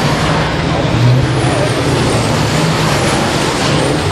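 Fórmula Truck race truck's turbo-diesel engine running, a steady low drone with faint high whistles falling in pitch every second or so.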